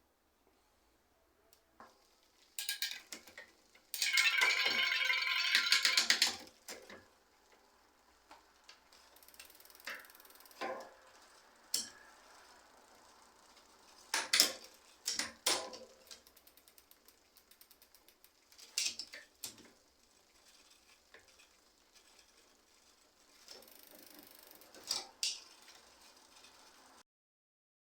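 Mechanical clicking and clinking of bicycle parts and tools being worked on. A dense run of rapid ratchet-like clicks about four to six seconds in is the loudest part, followed by scattered sharp knocks and clinks, and the sound cuts off suddenly near the end.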